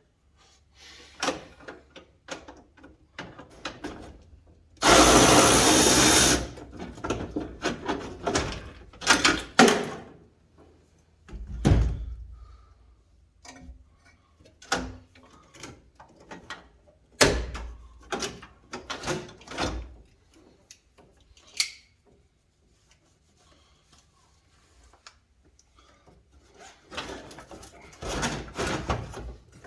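A power tool runs in one loud burst of about a second and a half, some five seconds in, among scattered knocks, clicks and rattles of tools and metal parts being handled while a truck dash is taken apart.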